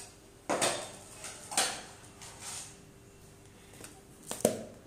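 Clear plastic gift box being picked up and handled: a few short knocks and rustles, with a sharp click near the end.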